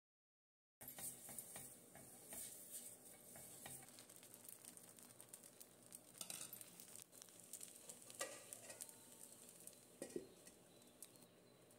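Appam batter sizzling faintly in a hot appam pan, with a few sharp clinks of a steel lid and utensils. The sound starts after a brief silence.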